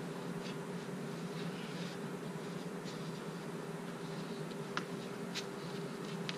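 Steady low hum with a few faint scrapes and taps, the clearest two near the end, from a climber's shoes and hands on a slanted concrete overhang as he shuffles up it.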